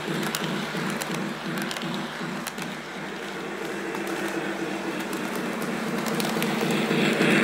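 Lionel LionChief Polar Express O-gauge toy train running on its track: a steady hum with a rhythmic beat about three times a second and scattered sharp clicks from the wheels on the rails. It grows a little louder near the end as the locomotive comes back toward the microphone.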